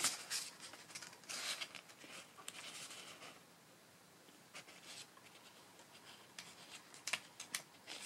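Pages of a small paper instruction booklet being turned and flipped by hand: short, irregular paper rustles and flicks, the loudest right at the start and again about seven seconds in.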